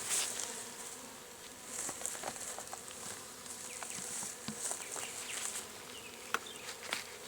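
Honey bees buzzing as they fly around a newly installed hive, a steady hum with scattered small clicks and rustles.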